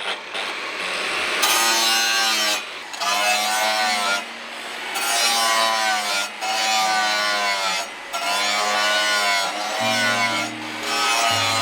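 A hand tool rasps in long, even strokes, about one a second with short pauses between them, each stroke carrying a wavering squeal typical of a file or saw drawn across a workpiece. Background music with held low notes plays underneath.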